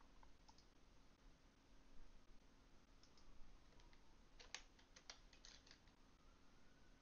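Faint computer mouse clicks and keyboard keystrokes over near-silent room tone, with a quick cluster of keystrokes about four and a half seconds in.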